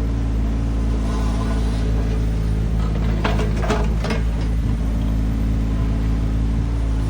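Kobelco SK17SR mini excavator's diesel engine running steadily under work. A few short, sharp knocks come about three to four seconds in.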